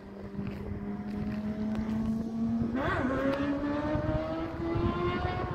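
Kawasaki Ninja motorcycle engine revving, its pitch climbing slowly, with a sharp throttle blip about three seconds in, after which the revs keep rising.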